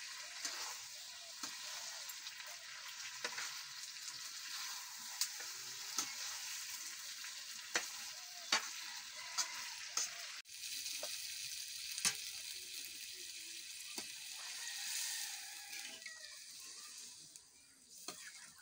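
Chicken curry sizzling in a metal kadai while a metal spatula stirs and turns it, scraping and clinking against the pan now and then. The sizzle dies down near the end.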